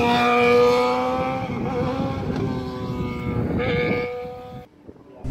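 Sportbike engine running at high revs as the bike passes on a wheelie, its note sagging slightly, then a brief rev about three and a half seconds in before it cuts off abruptly.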